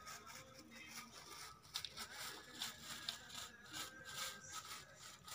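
Thin clear plastic bag crinkling and rustling as a cat paws and noses at it, in quick irregular crackles.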